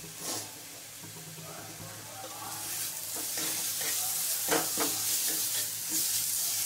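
Ground onion, ginger, garlic and green-chilli masala paste sizzling in oil in a non-stick kadai, fully fried, while a metal spatula scrapes and stirs it around the pan. The sizzle grows louder about two and a half seconds in.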